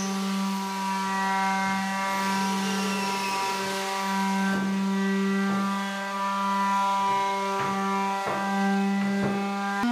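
Background music: a sustained organ-like chord holding one pitch, which steps up to a higher chord right at the end, with a few soft clicks or knocks over it.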